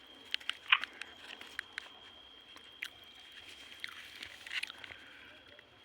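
Someone biting and chewing maize (corn), with scattered sharp crunches and small clicks.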